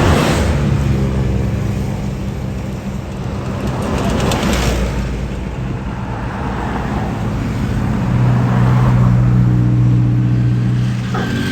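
Tour bus diesel engine running close by, its low note growing louder about eight seconds in. Two short bursts of hiss come near the start and about four and a half seconds in.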